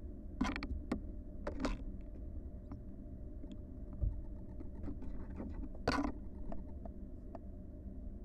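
Barn owl nestlings scratching and shuffling in the nest box: a few short scratchy bursts and light taps over a steady low hum.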